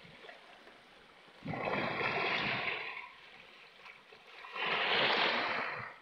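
Small sea waves washing in over shoreline rocks: two surges of rushing, splashing water, the first about a second and a half in and the second near the end, each lasting about a second and a half before fading.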